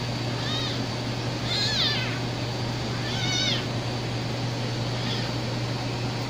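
Young kittens mewing: four short, high-pitched cries about every one and a half seconds, the second and third loudest.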